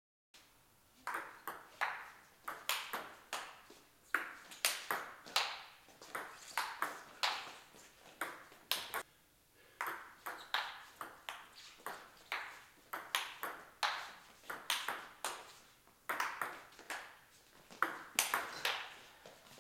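Table tennis rallies: the ball clicking back and forth off the table and the bats in a quick, uneven run of sharp taps, with short breaks between points. One bat is faced with attacking short pimples and the other with long defensive pimples.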